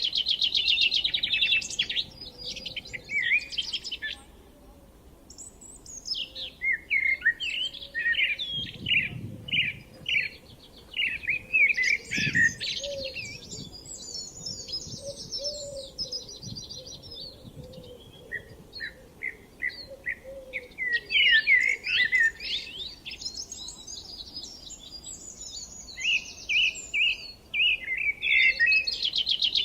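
Songbirds singing in quick, varied chirping phrases, with a short lull about four seconds in.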